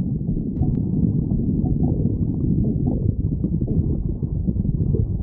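A person's stomach growling: a continuous low, gurgling rumble with no break.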